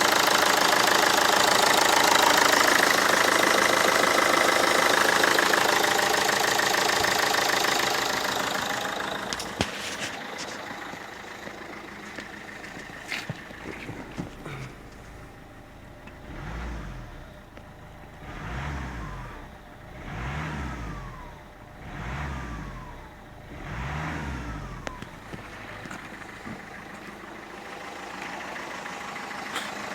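Peugeot 307 2.0 HDi four-cylinder diesel engine running with an injector knock, which appeared after the injector's copper sealing washer and plastic insert were replaced. The engine runs loud at first, then settles to a quieter idle. Near the end it is revved up and let back down five times, about two seconds apart.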